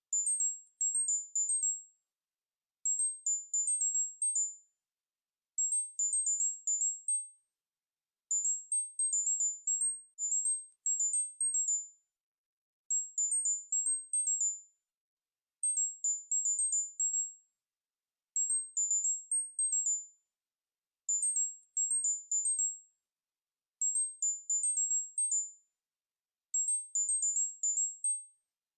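Synthesized tinnitus-relief tone pattern: very high-pitched electronic beeps in quick runs of notes hopping between two close pitches. Each run lasts under two seconds and they repeat about every three seconds with short silences between.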